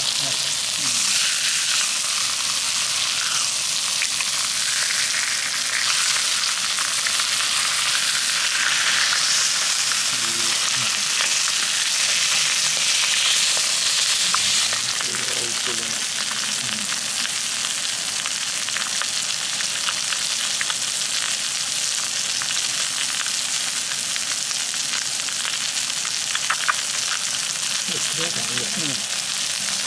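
Chicken thigh steak sizzling skin-side down in oil on a small thick iron griddle plate: a steady, dense sizzle with many fine crackles and spits.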